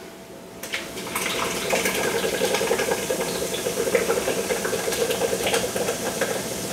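Beer poured from a can into the stainless steel inner pot of an Instant Pot, splashing steadily into the au jus liquid already in it. The pour starts about a second in.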